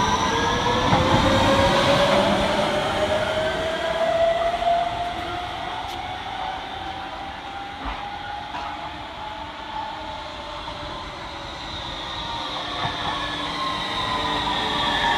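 Copenhagen Metro driverless train's inverter-fed traction motors whining as it pulls away: several tones glide steadily upward in pitch while the sound fades into the distance. Near the end a second metro train comes closer and grows louder, its whine falling in pitch as it brakes into the platform.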